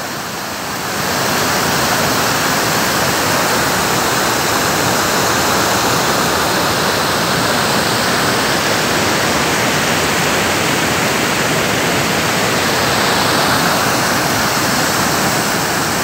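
Rushing water of a waterfall and rapids pouring over rock ledges: a loud, steady wash of noise that swells slightly about a second in and then holds even.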